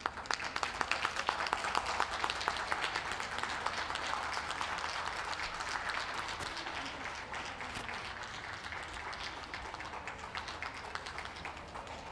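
Audience applauding: dense clapping that starts suddenly, is loudest in the first few seconds, then slowly dies down.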